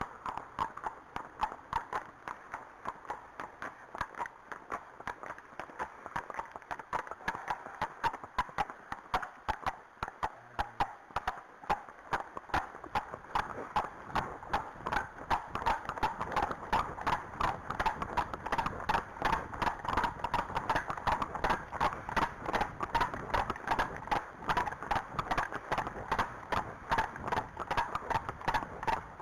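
Hooves of two horses, an Arabian and a Friesian, clip-clopping on a tarmac lane at a brisk pace: a rapid, steady run of hoofbeats that grows louder about halfway through.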